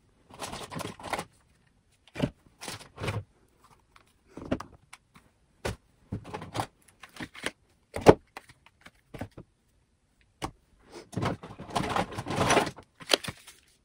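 Plastic makeup cases and compacts clicking and knocking together as a hand rummages through a container of makeup: irregular clatter throughout, with a longer stretch of rustling and rattling near the end.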